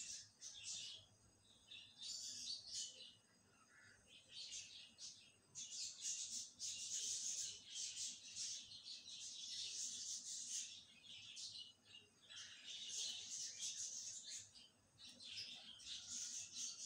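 Qeema sizzling and spitting in a hot wok, in irregular crackling bursts that swell and fade every second or two.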